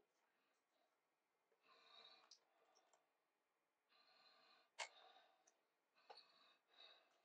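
Faint scraping and a few sharp clicks from a metal pry tool worked into the seam of a laptop's plastic bottom cover, prying at the snap clips that hold it. The scrapes come in short stretches, and the clearest clicks fall about halfway through and a second later.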